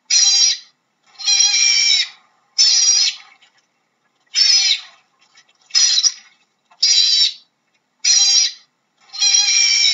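Otter calling: a series of high-pitched calls, each under a second long, about one a second, eight in all.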